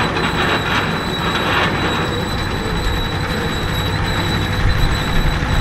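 Steam engine driving a portable sawmill, running steadily, with a thin high tone over the din.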